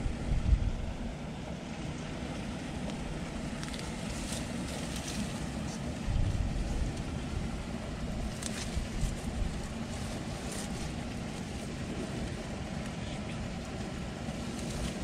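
Steady low rumble of wind on the microphone, swelling about six seconds in, with a few brief rustles of grass and reeds being pushed aside by hand.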